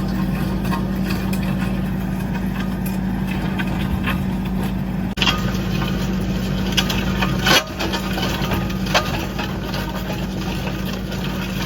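Skid steer engine running steadily, with a few sharp knocks and clanks about two thirds of the way through.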